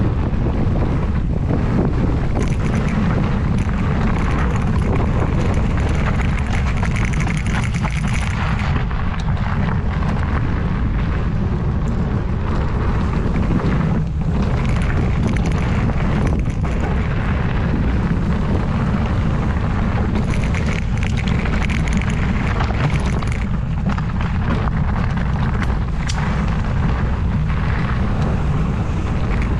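Steady wind buffeting the camera microphone during a fast mountain bike descent, mixed with the rumble and rattle of the bike and tyres over the dirt trail.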